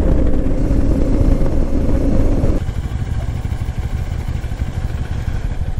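Moto Morini X-Cape 650 parallel-twin motorcycle engine running at a steady cruising speed, with heavy wind rumble on the microphone. About two and a half seconds in, the sound cuts abruptly to the bike idling at a standstill on a gravel track, under a quieter low rumble.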